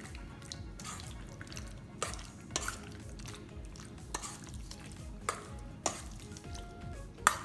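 Metal spoon stirring chunks of chicken in a wet yogurt and mustard-oil marinade in a stainless steel bowl, the spoon clinking sharply against the bowl about six times.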